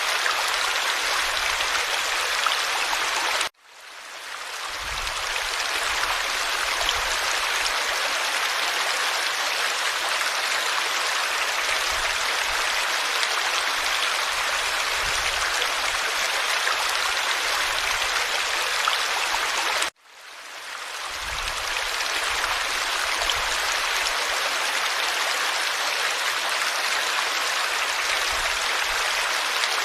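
Forest stream water rushing and splashing over stones as a steady, even wash. It cuts out abruptly twice, about three and a half seconds in and again about twenty seconds in, each time fading back up over a second or two.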